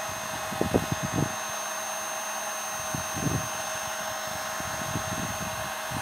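Hyundai H 2200 Expert heat gun running steadily, a blowing hiss with a steady whine from its fan motor, as it blows hot air onto plastic film. A few brief low bumps come about half a second to a second in and again about three seconds in.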